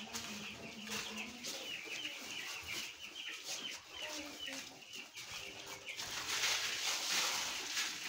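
Young chicks peeping: a rapid string of short, high cheeps. About six seconds in, a louder rustling of sawdust being handled joins and partly covers them.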